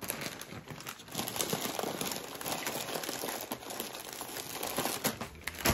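Packaging being crinkled and crumpled by hand: a dense run of small crackles lasting about five and a half seconds.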